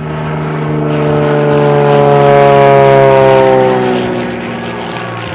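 Aerobatic propeller plane's engine and propeller passing overhead at power, growing louder to a peak about halfway through, its pitch sliding slowly down, then fading.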